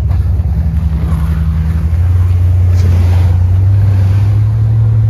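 Truck engine running steadily at idle, a low hum that grows slightly louder about two seconds in.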